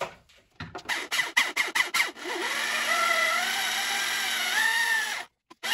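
Cordless drill: a quick run of clicks from the keyless chuck, then the drill motor running for about three seconds with a wavering whine, stopping briefly near the end and starting again.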